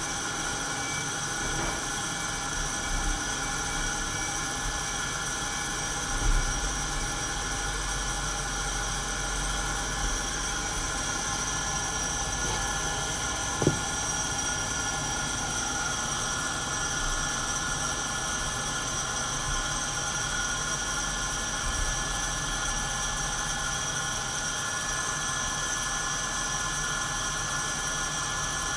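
Santoker Q5 coffee roaster running mid-roast: a steady mechanical whir with faint high whining tones from its fan and drum. There is a few faint bumps and one sharp click about halfway through.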